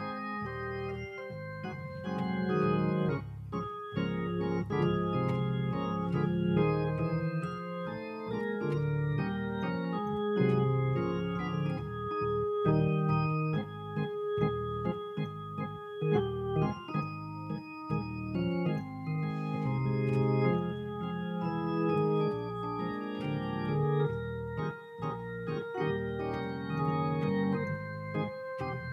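Organ playing sustained chords that change every second or two.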